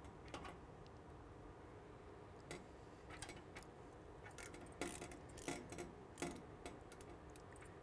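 Scattered light metallic clicks and taps of a wrench on the fuel manifold's B-nut fittings as the nuts are torqued, with three louder clicks close together past the middle.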